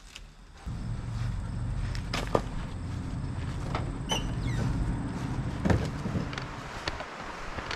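A vehicle engine running at a steady low hum, with two sharp knocks during it; the hum stops about six and a half seconds in.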